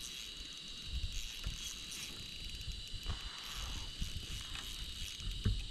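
Steady high insect drone, an even buzz, with irregular low knocks and rumble underneath.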